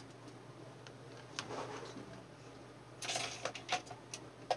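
Faint handling noises from a plastic USB charger head and its cable: small clicks and rustling, with a brief scrape about three seconds in and a few more clicks near the end.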